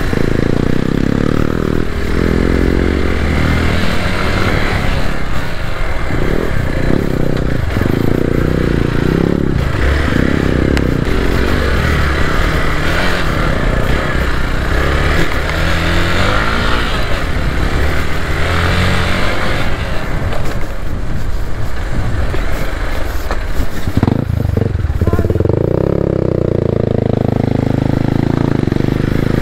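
Hero Xpulse 200 4V's single-cylinder engine running and revving up and down as the bike is ridden off-road, with a longer rise and fall in revs near the end.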